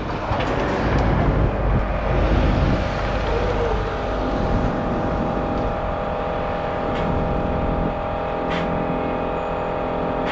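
Road traffic: a vehicle passes with a rushing sound over the first few seconds. About four seconds in, a steady machine hum with several fixed tones sets in and carries on to the end.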